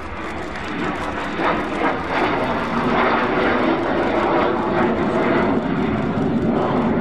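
Messerschmitt Me 262 twin-jet fighter flying past, its jet engines growing louder about a second in and staying loud, with the pitch sweeping briefly as it passes.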